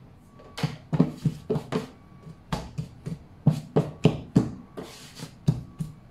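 Hands patting and pressing a piece of wholemeal dough flat on a silicone pastry mat, degassing it before shaping: a quick, uneven run of soft slaps, about three a second, starting about half a second in.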